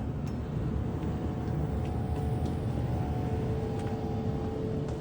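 Steady low rumble of a car on the move, with a faint steady hum over it.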